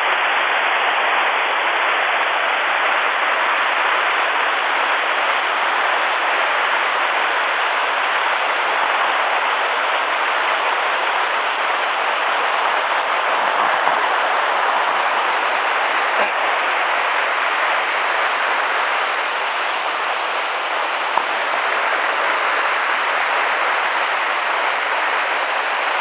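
Loud, steady rush of whitewater from a mountain stream's cascades and waterfall, swollen after a typhoon.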